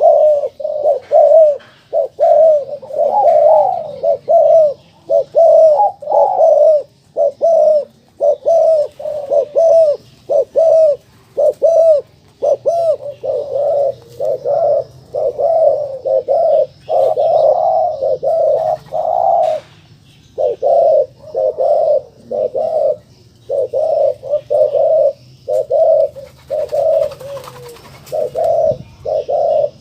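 Colour-mutation ringneck dove (puter) cooing over and over in its courtship 'giring' display: a long run of short, low coos in quick succession, broken by a brief pause around the middle.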